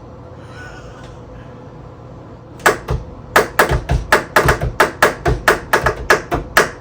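A fast run of sharp kitchen taps, about four a second, starting about two and a half seconds in: something knocked repeatedly against a bowl, container or counter while the seasoned butter mixture is being made.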